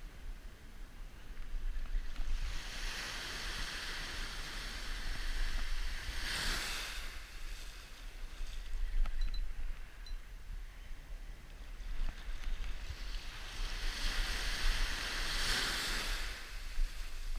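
Surf breaking and washing up the beach, a hiss of foam that swells twice, once about two seconds in and again about thirteen seconds in.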